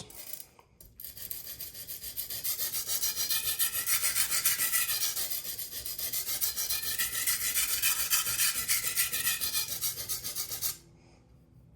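Steel knife blade scraping back and forth on a sharpening stone in rapid, even strokes, about four or five a second, stopping near the end. The stroking is working the front of the edge to raise a burr at the tip of a large kitchen knife.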